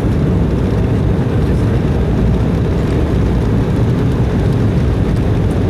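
Steady low rumble of cabin noise inside an Embraer E190 airliner: its General Electric CF34-10E turbofan engines and the rushing airflow, heard from a window seat beside the engine.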